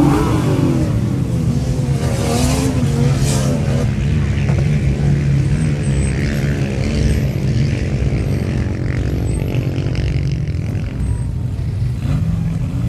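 Engines of pickup trucks and SUVs running steadily on a sand dune, a constant low hum, with people's voices rising and falling over it in the first few seconds.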